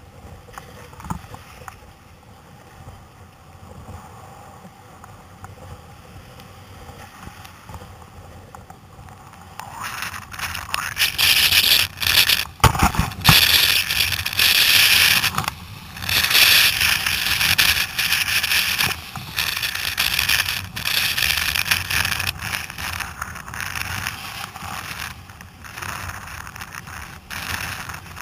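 Breaking surf and whitewater rushing and splashing around a sit-on-top kayak as it pushes out through the waves. It is fairly quiet for the first ten seconds, then turns loud and choppy as water surges over and around the kayak-mounted camera.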